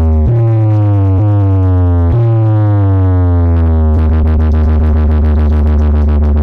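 Electronic DJ sound-check music with a deep sustained synth bass and a downward-sweeping tone that restarts three times. From about four seconds in, a fast pulsing beat runs over the steady bass.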